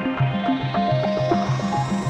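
Background music with a steady repeating bass pattern of about four notes a second under held higher notes.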